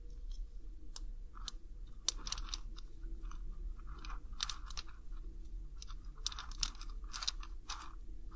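Close-miked chewing of shelled Chinese hickory nut (small walnut) kernels: irregular crisp crunches, several a second at times.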